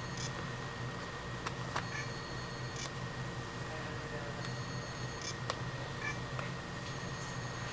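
Short, high-pitched electronic chirps from the Liquivision Lynx ultrasonic locator system, coming irregularly every one to three seconds over a steady low hum.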